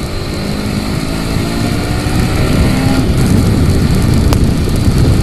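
Honda CBR150R single-cylinder engine pulling under acceleration, its note rising steadily in pitch. About three seconds in the rising note breaks off, and a louder rush of wind on the microphone takes over.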